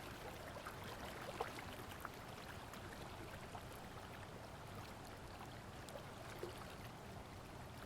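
Faint trickling water, a steady wash with scattered light drips.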